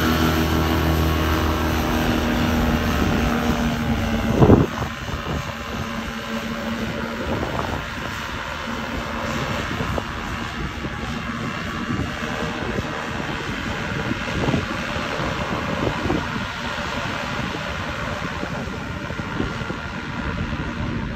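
Paramotor trike's engine and propeller running at full power on the takeoff roll, then droning more faintly as the trike climbs away. A loud thump about four and a half seconds in.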